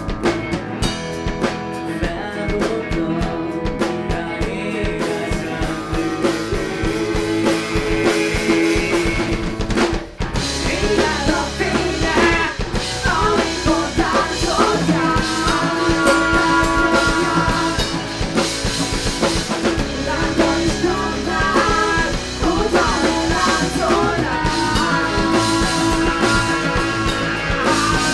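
Live rock band playing a song on drum kit, electric guitars and bass, with singing, and a brief drop in level about ten seconds in.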